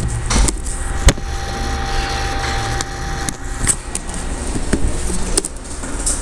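A few separate keystrokes on a computer keyboard, sharp single clicks over a steady low room hum.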